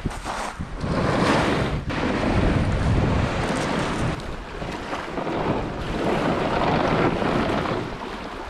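Wind buffeting the microphone, with small waves lapping on a shingle shore.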